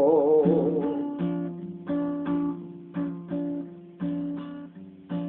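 Acoustic guitar strummed in a steady rhythm, chords struck about twice a second and left to ring. A man's held sung note with vibrato fades out about a second in.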